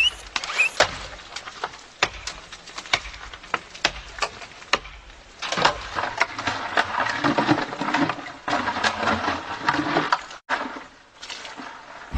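Irregular sharp wooden cracks and knocks, coming thicker with a rough crackle from about five to ten seconds in.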